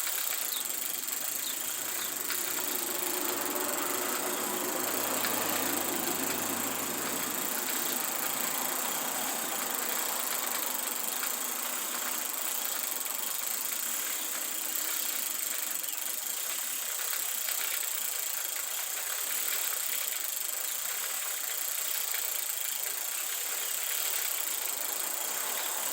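Bicycle chain being cranked backwards through a Park Tool CM 5.3 Cyclone chain scrubber, running through the cleaner's brushes and cleaning fluid with a steady mechanical noise.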